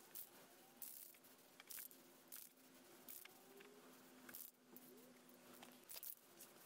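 Near silence: faint room tone with a steady low hum and scattered soft ticks.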